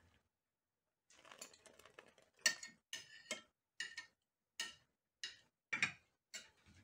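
Metal skimmer clinking and scraping against the rim of an aluminium pot while foam is skimmed off currant jam: faint soft scraping, then a run of light clicks about two a second from about two and a half seconds in.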